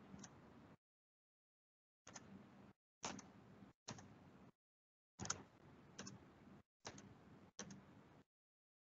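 Near silence broken by about seven faint computer clicks, each followed by a brief faint hiss that cuts off abruptly, as a meeting microphone opens and closes.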